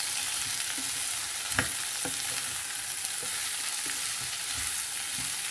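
Chopped vegetables being stirred with a spatula in a nonstick kadai over a gas flame: a steady frying sizzle with the spatula scraping, and a few light taps against the pan.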